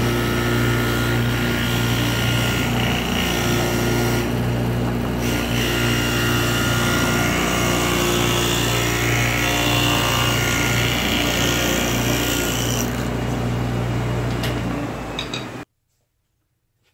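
Steel City table saw running steadily while a wooden strip is fed past the blade along the fence, with a steady low motor hum under the cutting noise. The sound stops abruptly near the end.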